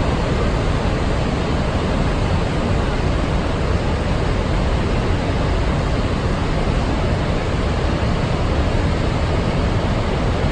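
Niagara Falls' falling water making a steady, loud rushing noise with no breaks.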